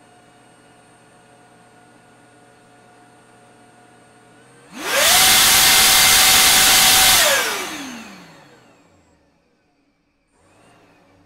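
Electric supercharger, a compressor spun by an LMT 3080 brushless motor on an MGM 30 kW controller from LiPo batteries, run up sharply about five seconds in from a faint whine to a loud rush of air with a high steady whine. It is held at speed for about two and a half seconds while drawing roughly 340 amps, then spins down with a falling whine.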